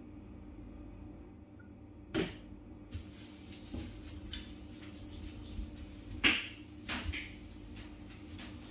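Washing-up at a kitchen sink: scattered knocks and clinks as items are handled and scrubbed, the sharpest about two seconds in and about six seconds in, over a steady low hum.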